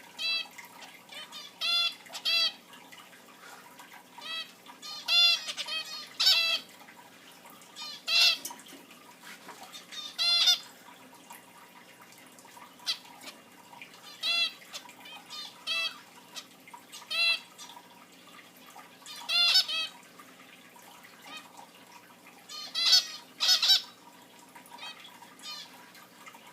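Zebra finches calling: short chirps, often in quick pairs or threes, coming every second or two.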